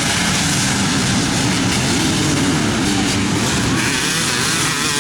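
A row of dirt bikes launching together at an off-road race start, many engines revving hard at once in a dense, steady mix of wavering engine notes.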